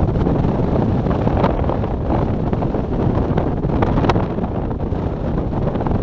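Strong wind blowing over the microphone: a loud, steady low rumble.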